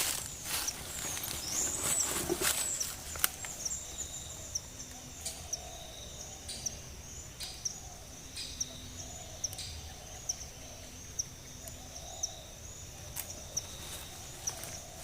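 Teak-forest ambience: a high chirp repeats about twice a second over a steady high hum of insects or birds, with faint calls lower down. A few knocks and rustles come in the first few seconds.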